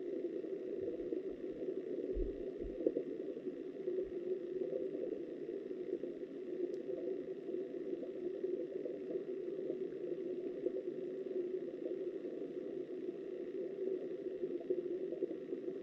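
Steady, muffled rush of flowing river water heard through an underwater camera housing, with a few soft low thuds in the first few seconds.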